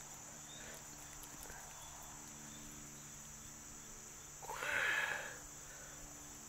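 Steady, high-pitched insect chorus of the kind crickets make, with a brief louder pitched sound lasting about a second, some four and a half seconds in.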